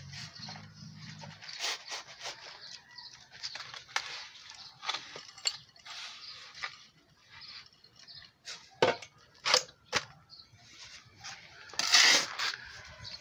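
Steel shovel scooping and scraping sand and cement mix on a concrete slab and tipping it into metal hollow-block moulds, with a string of short scrapes and knocks. The loudest is a longer scrape of the shovel blade across the concrete near the end.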